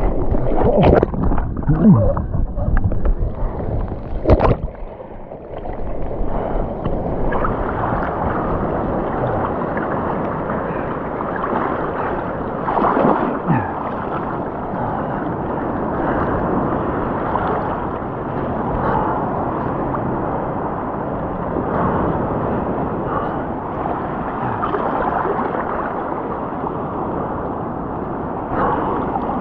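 Water sloshing and splashing around a large kob (mulloway) thrashing at the surface as it is held by hand, with a few louder splashes in the first few seconds and then steady churning water.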